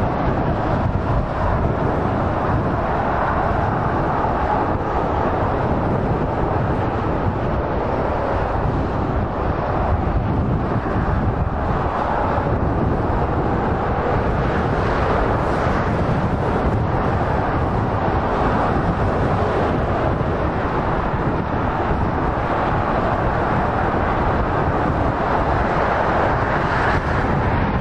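Steady motorway traffic noise: the tyres and engines of lorries and cars passing at speed merge into one even rush, with no single vehicle standing out.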